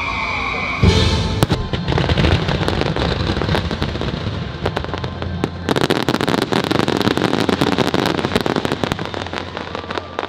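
Fireworks display with music playing along: a loud boom about a second in, then shell bursts and crackling that grow into a dense run of crackles from about halfway.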